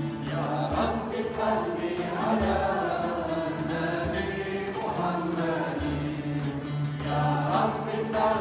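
Sufi devotional chant: several voices sing a slow, wavering melody over long held low notes, with string and frame-drum accompaniment.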